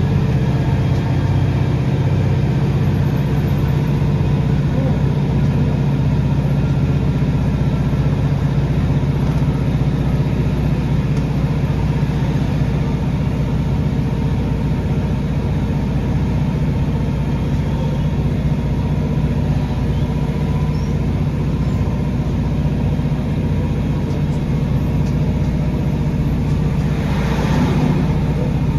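Diesel engine of a Class 150 Sprinter diesel multiple unit running steadily under power as the train pulls away from a station, heard from inside the carriage, with wheel and track noise. A short rushing noise comes near the end.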